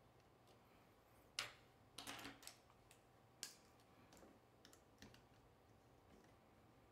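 LEPAO plastic construction-toy rods and connectors being pushed and snapped into place: a scattered series of short, sharp plastic clicks, the loudest about a second and a half in, with a quick cluster around two seconds.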